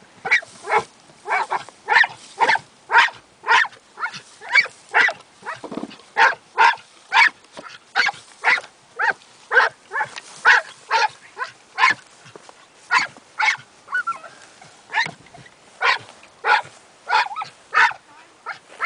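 Glen of Imaal Terrier barking steadily and rapidly, about two to three sharp barks a second without a break, while working the caged rats in an earthdog tunnel.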